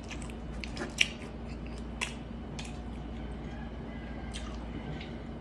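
Close-up mouth sounds of chewing a mouthful of braised pork leg, wet smacks and small clicks, with a sharp click about a second in that is the loudest sound and another just after two seconds. A steady low hum lies underneath.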